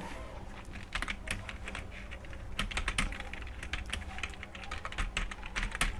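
Rapid, uneven typing on a computer keyboard: a stream of light key clicks, several a second, during a timed typing test.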